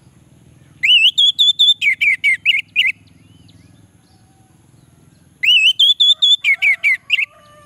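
Orange-headed thrush singing two loud phrases a few seconds apart, each opening with a rising whistled note and running on into a quick series of short clear notes.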